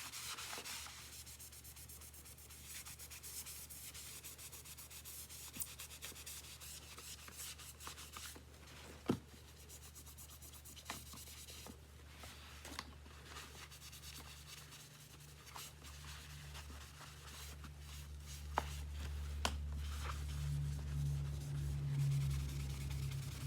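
Hand scrubbing and rubbing on the plastic body of a stick vacuum, cleaning grime off it, with scattered light clicks and knocks as the parts are handled. A low hum comes in during the last few seconds.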